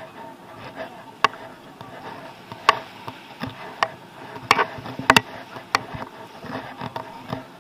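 Sharp, irregular clicks and knocks, roughly one a second with a quick double about five seconds in. They are handling and footstep noise from an action camera carried on a pole by someone walking barefoot over coarse coral-and-shell sand.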